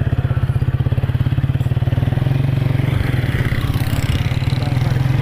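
Motorcycle engine running steadily under way, heard from the bike itself; the engine note drops briefly about three seconds in, then picks up again.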